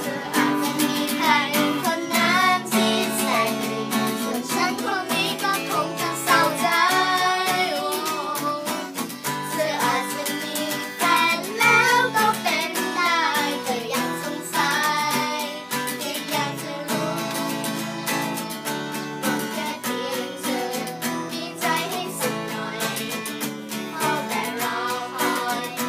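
An acoustic guitar strummed in steady chords, with singing voices over it, a child's among them.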